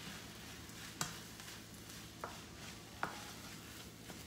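Fried rice being stirred in a frying pan with a spatula over a soft steady sizzle, the spatula clacking sharply against the pan three times, about one, two and three seconds in.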